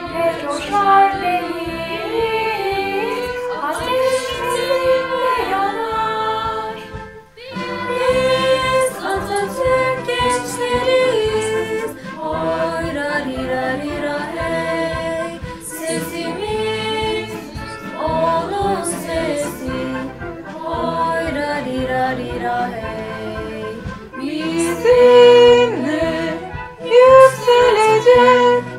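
Youth choir singing together, voices recorded separately and mixed into one performance, with a brief break about seven seconds in.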